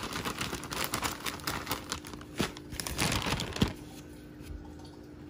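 Plastic zipper bag crinkling and rustling as a piece of whiting is shaken inside it with dry fish-fry batter to coat it. The shaking stops about two-thirds of the way through.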